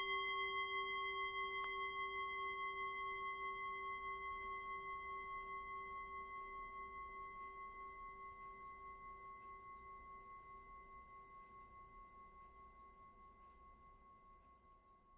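A struck bell, of the kind used in meditation, rings out in one long tone that fades slowly with a gentle waver and dies away near the end.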